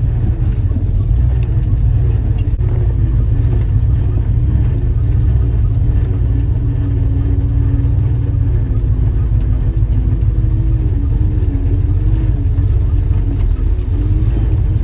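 Jeep engine running at a steady, moderate speed while driving, with a steady low drone of engine and drivetrain and an engine note that drifts up and down a little.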